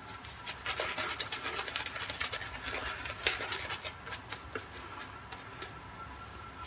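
Shaving brush working lather onto a bearded cheek: rapid, scratchy strokes of the bristles against skin and stubble, thinning out after about four and a half seconds.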